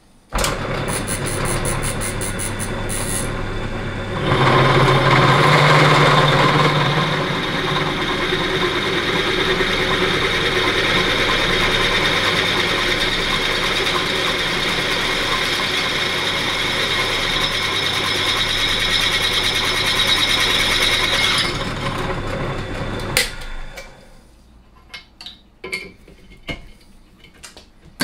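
Bench pillar drill's motor starting, then a twist drill bit cutting into a metal plate held in a machine vice, a steady hum that gets louder and rougher from about four seconds in. About twenty seconds in the motor is switched off and runs down, ending in a click, followed by a few light metal clinks.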